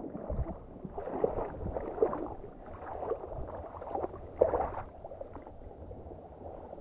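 Water gurgling and lapping, with a few short bubbling blips, the clearest about four and a half seconds in.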